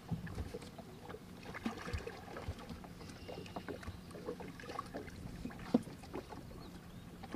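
Light water splashing as a large flathead catfish is slipped back over the side of a metal fishing boat, with scattered small knocks and taps on the hull and one sharper knock about six seconds in.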